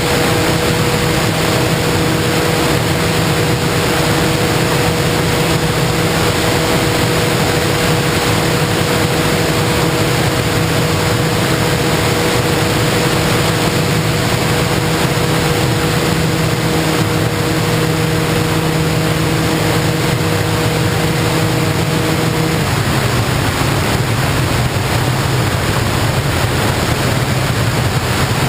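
The FPV model plane's motor and propeller hum at a steady pitch over a loud rush of wind noise. The motor tone stops about 22 seconds in, which is the throttle being cut, while the wind rush carries on.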